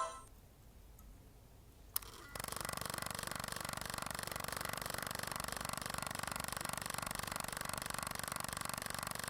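Sony Cyber-shot digital camera switched on: a click, then about two seconds in its lens motor starts whirring steadily with a fast, even ticking. It is trying to push out a lens that won't extend, the camera's fault.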